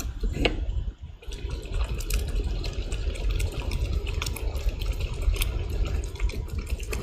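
Liquid sloshing and bubbling in a large cooking pot of rice and meat stock, with many small clicks over a steady low rumble.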